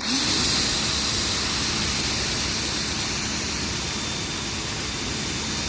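Pressure washer spraying through a white 40-degree wide-fan nozzle tip: a loud, steady hiss of water spray over the running pump, switching on abruptly.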